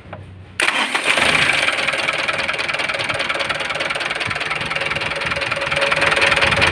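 Mitsubishi Fuso 4D34 four-cylinder turbo-diesel starting suddenly about half a second in, then running steadily with a knock. The engine is freshly overhauled yet knocks, and the mechanic takes it for an internal fault with heavy blow-by.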